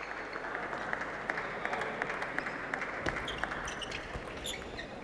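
Arena crowd applauding table tennis play, a spread of many hand claps that thins out over the second half.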